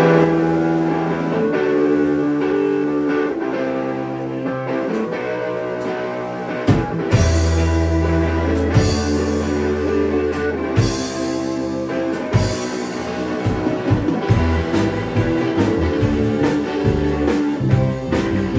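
Live blues band playing through a club PA: electric guitars open with sustained chords, then the bass and drum kit come in about seven seconds in and the full band plays on.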